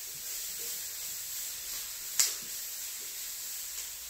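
Stir-fry vegetables sizzling steadily in a hot wok, with one sharp knock about two seconds in.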